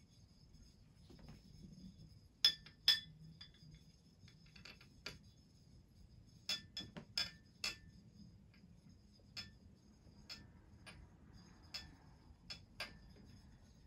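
Sharp glassy clicks at irregular intervals, about a dozen, the two loudest close together near the start, as a gas tube is touched to the glass tip of a plasma spindle lamp. Under them runs a faint steady high-pitched whine.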